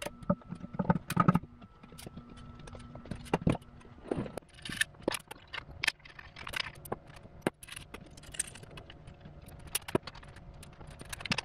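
Irregular metallic clicks and knocks of hand tools and bolts being worked in a car's engine bay, over a faint steady hum.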